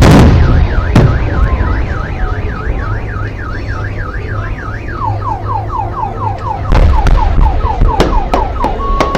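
Firework shells bursting with loud booms, the loudest at the very start, while a car alarm sounds: a warbling siren swinging up and down about four times a second, then about halfway through a quick falling chirp repeated three or four times a second.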